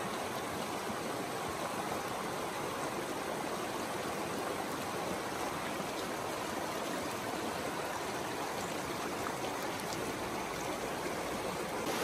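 Clear, shallow mountain stream flowing over and between rounded boulders in small riffles, a steady rush of water with no change in level.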